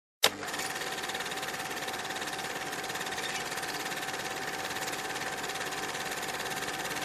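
Cine film projector running: a steady mechanical whirr with a fast, even clatter and a held tone. A short dropout at the start ends in a sharp click.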